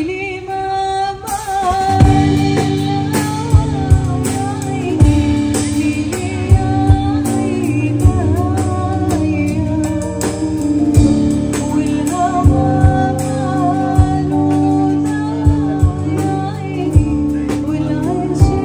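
Live band music with a singer, carried by a steady drum beat of about one stroke a second that kicks in about two seconds in.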